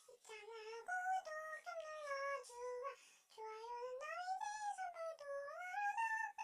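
A high-pitched singing voice with no accompaniment, holding notes and sliding up and down between them in a wordless, sing-song melody.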